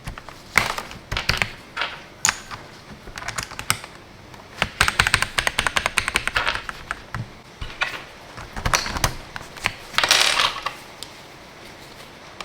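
Typing on a mechanical keyboard fitted with Akko V3 Cream Blue tactile switches: scattered keystrokes, then a fast run of key presses in the middle and another quick flurry about ten seconds in.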